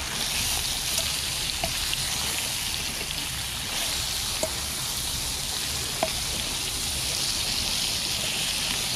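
Bacon sizzling in a hot frying pan: a steady hiss that sets in suddenly at the start, with a few small pops of spitting fat.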